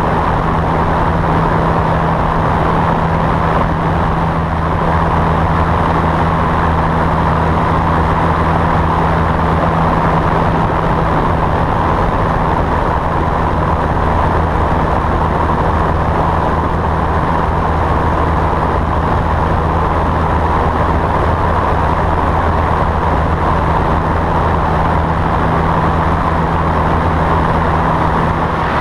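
Cessna 172's piston engine and propeller running steadily at climb power just after takeoff, with a constant low drone under loud rushing airflow over the externally mounted camera.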